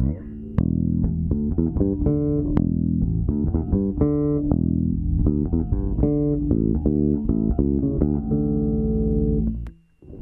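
Aria Pro II SB-1000 active electric bass with roundwound strings played clean, a run of plucked notes with sharp attacks, breaking off suddenly near the end.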